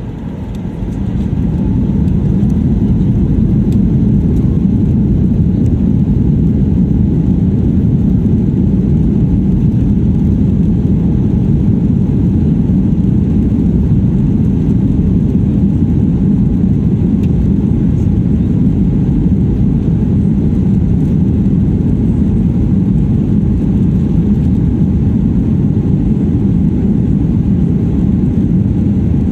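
Airliner's jet engines building up in the first couple of seconds, then a loud, steady low rumble of the takeoff.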